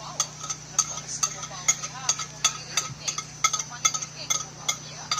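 Quick, repeated metallic clinks, about three to four a second, like a metal spoon or utensil knocking and stirring against a dish.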